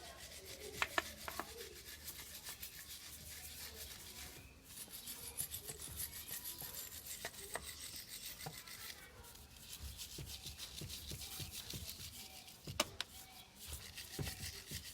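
Stiff brush scrubbing metal motorcycle engine parts in fast, repeated strokes, with a few sharp knocks.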